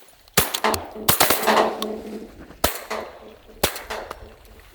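Shotgun volley: about five shots spread over roughly three seconds from at least two guns, one of them a 20 gauge, fired at ducks coming in.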